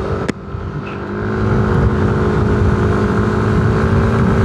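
Yamaha Aerox 155 scooter's single-cylinder engine running under way, picking up speed about a second in and then holding a steady note, with wind and road noise. A brief sharp click comes just after the start.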